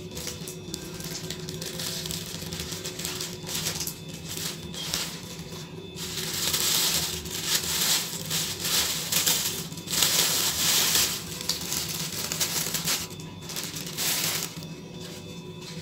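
Plastic wrap and paper packing sheets crinkling and rustling as they are handled and pulled off, loudest in two stretches around six and ten seconds in. Faint background music runs underneath.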